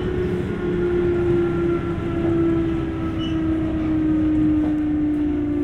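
Sotetsu 8000 series electric train running, its Hitachi GTO-VVVF inverter and traction motors giving a strong steady tone that slowly falls in pitch over the rumble of the wheels and car body.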